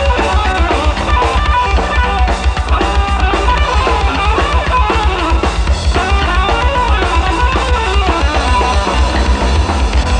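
A rock band playing: electric guitar lines over bass guitar and a drum kit.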